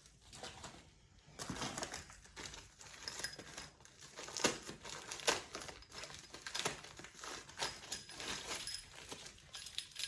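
Plastic packaging crinkling and rustling as it is handled and opened, with scattered sharp clicks and taps.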